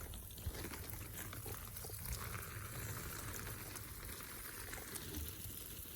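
Water running and pouring steadily, a little louder from about two seconds in.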